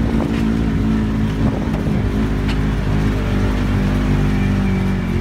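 Vehicle engine running steadily under load, with a few brief knocks about a quarter second, a second and a half and two and a half seconds in.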